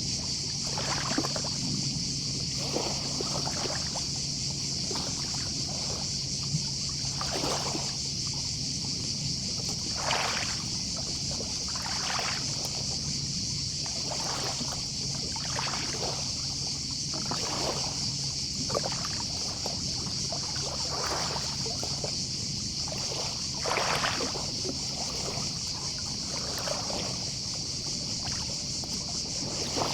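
Gentle sea waves lapping and washing onto the shore every second or two, over a steady high drone of distant cicadas. A faint low hum fades out about a third of the way through.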